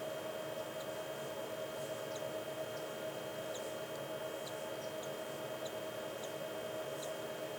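Steady electrical hum with about a dozen faint, very short, high peeps scattered through it: a cockatiel chick cheeping as it hatches.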